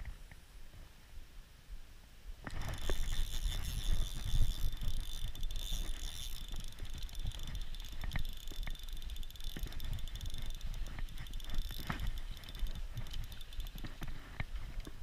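Spinning reel being wound in, starting suddenly about two and a half seconds in: a steady whirring with many small clicks, over rumble from hands and clothing rubbing close to the chest-mounted camera.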